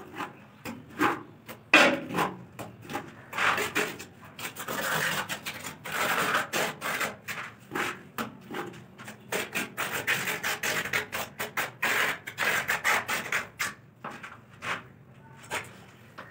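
Steel trowel scooping cement mortar from a bucket and scraping and slapping it across the back of a ceramic wall tile, with scattered knocks and taps; a sharp knock about two seconds in is the loudest.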